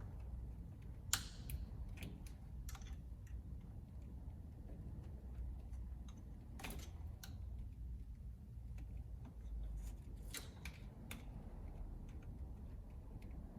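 Scattered, irregular light clicks and scrapes of hands and small tools working a plastic vacuum line fitting, with the sharpest clicks about a second in, near the middle and later on.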